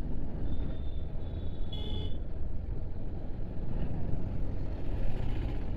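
Motorcycle engine running steadily at low town speed, with road and wind noise on the rider's onboard microphone. A thin high beep sounds about half a second in and ends in a short, sharper beep about two seconds in.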